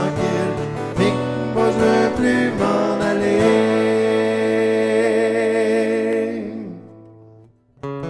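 Takamine acoustic guitar strummed, then a chord left to ring and die away almost to silence; strumming starts again just before the end.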